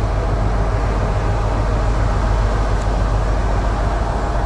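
Class 60 diesel-electric locomotive approaching slowly, its Mirrlees eight-cylinder diesel engine running with a steady low rumble.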